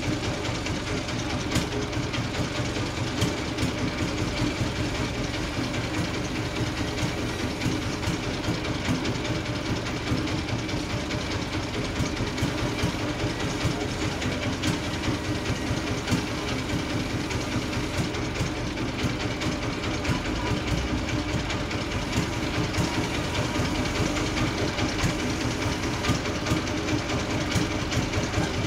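Large industrial sawmill bandsaw running steadily: a dense mechanical hum with several steady tones, and occasional sharp clicks.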